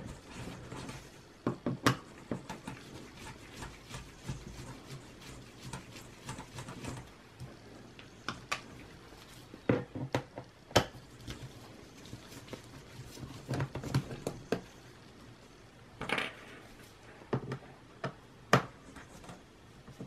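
Small screws being turned out of a Dell Latitude E5550 laptop's plastic bottom cover with a mini Phillips screwdriver: scattered light clicks and taps of the tool and screws, with a few sharper clicks among them.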